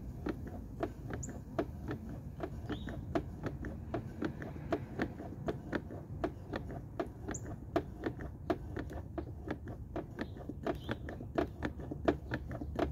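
Hand-operated quart-bottle gear lube pump being stroked steadily, clicking about three to four times a second as it pushes gear oil up a hose into an outboard's lower unit from the bottom drain hole.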